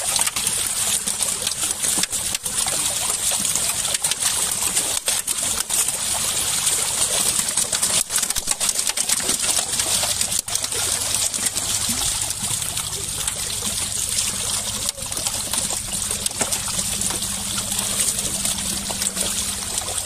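Many fish thrashing and splashing at the surface, crowded together in a seine net drawn in close: a continuous churning of water with rapid spatters throughout.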